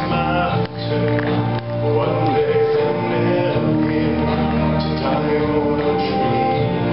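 Church choir singing a hymn with instrumental accompaniment, in long held notes.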